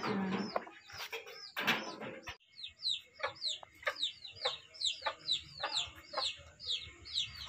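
A bird chirping over and over, short high falling chirps about three a second, after two louder, lower calls in the first two seconds.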